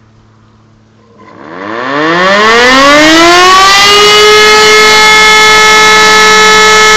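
E57 electromechanical motor siren spinning up about a second in, its pitch rising for about three seconds, then holding a loud steady tone. It is sounding the fire-alarm signal during a siren test.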